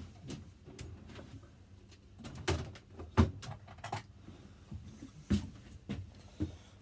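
Scattered clicks and knocks of a plastic screwdriver-bit case and tools being handled and opened, the loudest about three seconds in.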